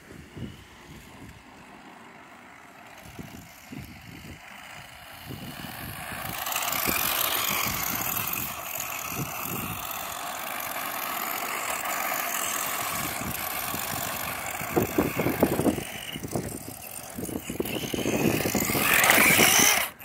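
Small electric remote-control truck running on asphalt, its motor whirring and its tyres hissing. The sound grows from about six seconds in and is loudest near the end as the truck comes close.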